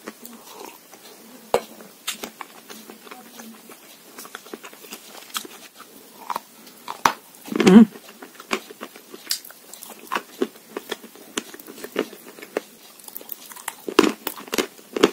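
Close-up crunching and chewing of edible chalk and clay: many small crisp crackles, with one loud, deeper crunch a little past the middle and a few strong ones near the end.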